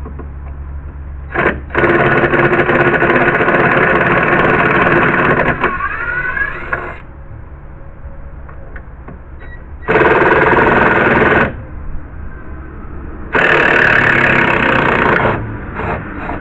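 Cordless screw gun backing deck screws out of the boards in three runs: a long one of about five seconds whose pitch climbs near its end, then two shorter runs of a second and a half to two seconds.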